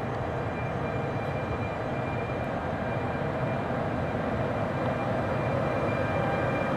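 FS E464 electric locomotive hauling a regional train, rolling slowly towards the listener: a steady mechanical hum with a few faint, steady high tones, growing slightly louder.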